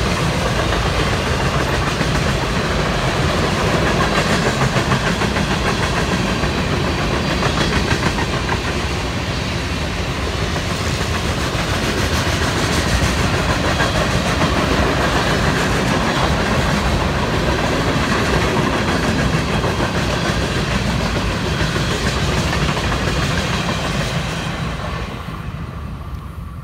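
Freight train cars, boxcars and centerbeam flatcars, rolling past on the track with a steady, loud rumble of wheels on rail, fading near the end as the last car goes by.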